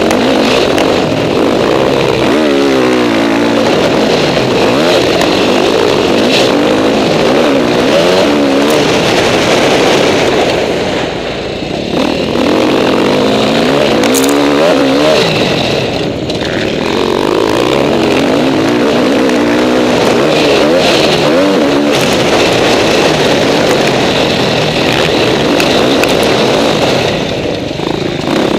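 KTM 450 SX-F four-stroke single-cylinder motocross engine heard from on board the bike, revving up and down continuously as it is ridden hard over a dirt track. The throttle closes briefly three times, about 11, 16 and 27 seconds in, before it pulls again.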